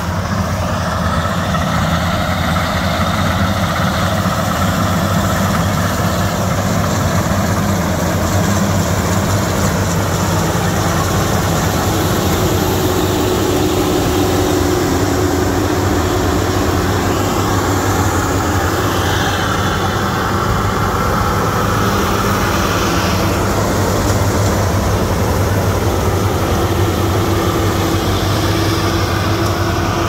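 Vardhman VCH-2200 track combine harvester running steadily under load as it cuts paddy: a continuous engine drone with the machinery's hum over it, and a higher whine that rises out of it for a few seconds near the middle and again near the end.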